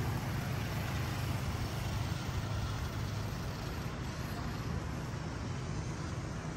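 Steady street traffic noise, with motorbike and car engines passing on the road.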